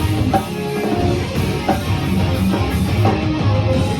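Live rock band playing an instrumental passage of a song, with guitars, bass and a drum kit keeping a steady beat.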